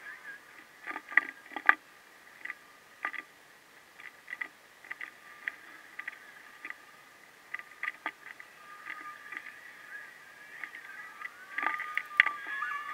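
Sped-up room sound of mural painting: irregular quick clicks and taps from the painter handling brushes and paint, over a faint, wavering high-pitched hum.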